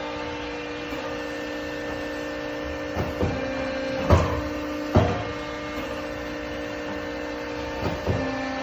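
Hydraulic press brake (Accurpress 250-ton) cycling: a steady hydraulic pump hum with several sharp clunks as the ram and back gauge move, two near three seconds in, one each near four and five seconds, and two more near the end.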